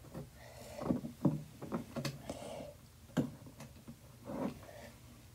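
A hot glue gun being worked against a popsicle-stick platform: a handful of irregular knocks and clicks of plastic against wood, spaced unevenly.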